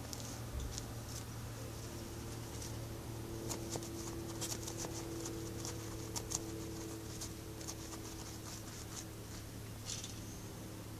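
A small dog's front paws scratching and scraping in soil while it digs, a rapid, irregular run of short scratchy strokes that is busiest in the middle, over a steady low hum.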